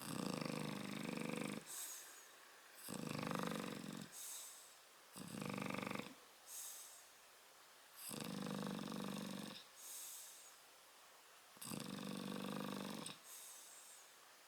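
Sleeping Shar-Pei snoring in a steady breathing rhythm: five loud, buzzy snores, each followed by a shorter, softer snore.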